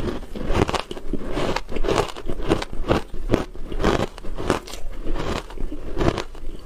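Close-miked biting and chewing of a hard ice chunk dusted with matcha powder: a rapid, irregular run of sharp, crackly crunches, about two to three a second.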